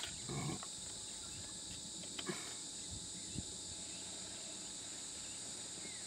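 Steady high-pitched drone of insects in dry forest. A brief voice sound comes just after the start, and a couple of faint knocks follow.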